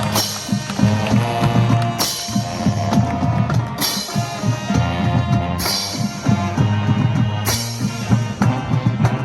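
Marching band playing: steady drum beats under sustained instrument notes, with a crash about every two seconds.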